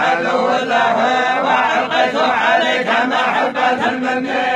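Many men's voices reciting the Quran together in unison, a continuous collective recitation without pauses.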